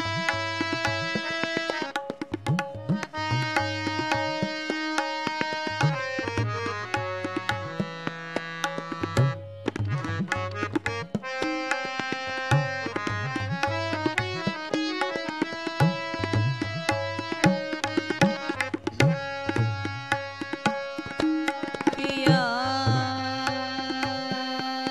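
Tabla playing a running accompaniment to a thumri: crisp strokes on the small drum and deep bass-drum strikes, some bent in pitch, under held melodic notes.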